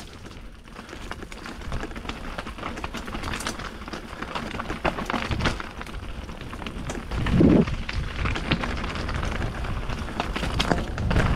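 Full-suspension enduro mountain bike clattering down a rocky, wet trail: tyres crunching over stones and roots, with a constant rattle of quick knocks and stones striking the frame. A louder, deeper thump comes about seven and a half seconds in.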